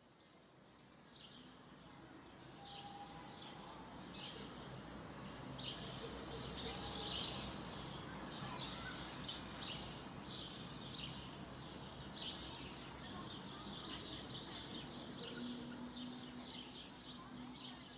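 Birds chirping, many short high calls over a faint steady outdoor background, coming in about a second in.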